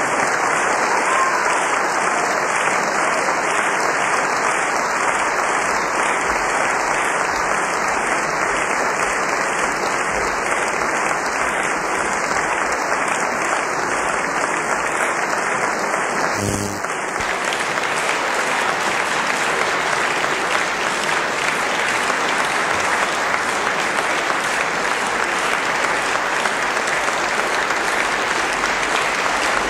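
Concert audience applauding steadily after an operatic duet. A little past halfway there is a brief dip in level with a click.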